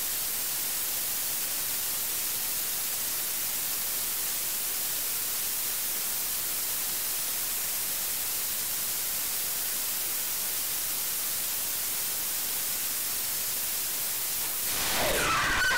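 Rocket engine hot fire: a steady, even hiss of the exhaust with no change in level.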